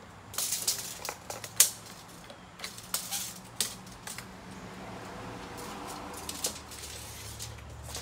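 Sharp clicks and rattling taps from a steel tape measure being pulled out and handled, about half a dozen in the first few seconds. A faint steady hum follows.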